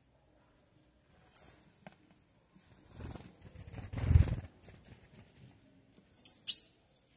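Sayaca tanager at a fruit feeder: soft pecking and rustling with a low thump about three to four seconds in, then two short, sharp high call notes close together just after six seconds as it takes off.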